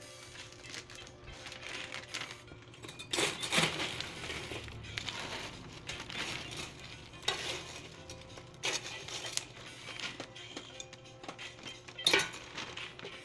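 Crisp pork rinds (chicharon) rattling and clinking as they are scooped with a metal scoop in a stainless steel basin and tipped into a plastic bag, in four or five short bursts. The loudest bursts come about three seconds in and near the end.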